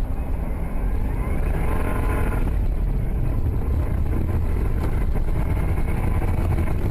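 A car driving: steady low engine and road rumble, with a faint rising whine about one to two seconds in.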